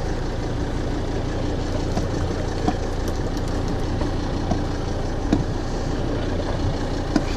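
A boat engine idling steadily, with a few light clicks and knocks over it.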